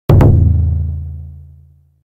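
Logo sound effect: a deep drum-like boom struck twice in quick succession, its low ring fading away over nearly two seconds.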